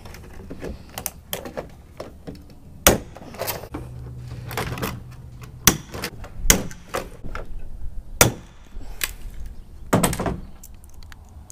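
Hand blind-rivet (pop rivet) gun in use: irregular sharp clicks and clacks as the handles are squeezed and the rivets set, with tools and an aluminium panel knocking on a plastic truck bed liner.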